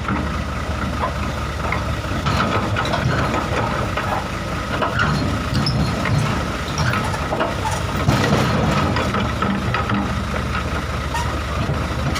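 Kobelco excavator's diesel engine running under load, with a steady high whine and scattered metallic clanks and knocks as it tries to travel on its tracks. One side of its travel drive is too weak to pull.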